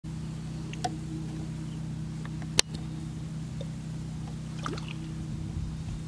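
A steady low mechanical hum, like a small engine or motor running, with a single sharp click about two and a half seconds in.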